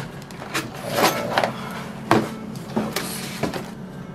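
Handling noise from a cardboard kit box and plastic packaging: rustling and scraping with a few light knocks as a vacuum-formed plastic parts tray is moved about in the box.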